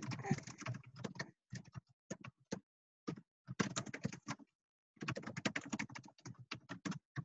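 Computer keyboard typing heard through a video-call connection: irregular runs of key clicks in several bursts, with the line going dead silent between them.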